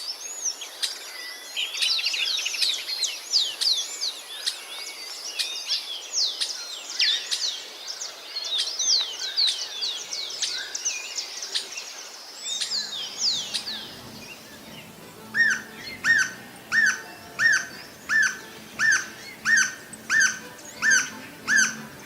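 Songbirds chirping, many quick high notes overlapping in a busy chorus. About two-thirds of the way in, one bird takes over with a loud call repeated evenly, about one and a half notes a second.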